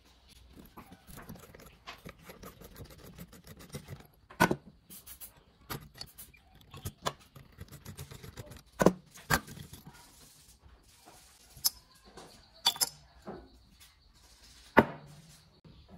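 Screwdriver working loose the screws of a porcelain lamp socket in a rusty steel lamp base: small metal scrapes and rattles, broken by several sharp metal clinks and knocks. The loudest knocks come about nine seconds in and near the end, as the socket and its rusty bracket come loose.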